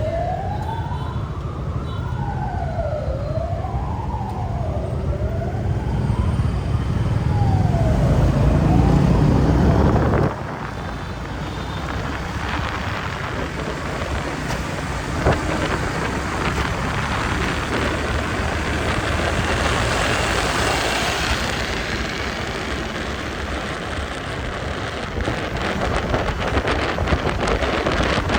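An ambulance siren wailing, rising and falling in pitch over the rumble of traffic. About ten seconds in it cuts off abruptly, and a steady rushing noise takes over.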